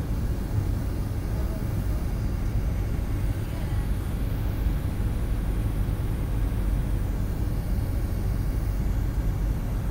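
Steady low rumble of a jet airliner's engines and rushing air heard inside the passenger cabin while the plane descends on approach to land.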